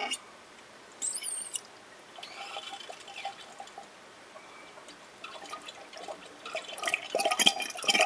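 A thin stream of oil trickling from a valve nozzle into the metal bowl of a centrifuge, a faint steady dribble. A brief high squeak about a second in, and a few clicks and knocks near the end.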